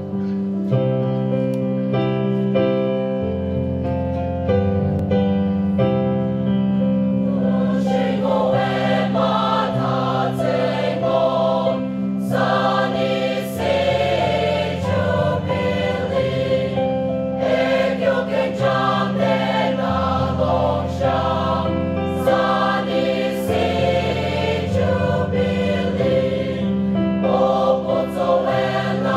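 Mixed choir singing a gospel hymn with keyboard accompaniment. The keyboard plays held chords alone at first, and the choir comes in about eight seconds in.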